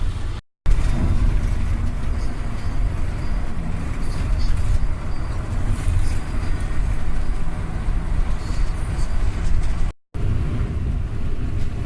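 Steady low rumble of a car driving along a road, with no clear engine tone; the sound cuts out completely for a moment twice, about half a second in and near the end.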